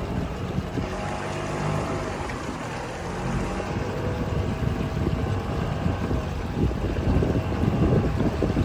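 Boat engine running steadily underway, with wind buffeting the microphone; the wind gusts grow louder in the second half.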